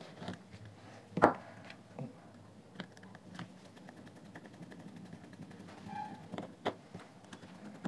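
Scattered light clicks and knocks of hard plastic as a headphone's ear-cup cover is pressed onto its shell and a small screwdriver is set into the cover's screws. The loudest knock comes about a second in.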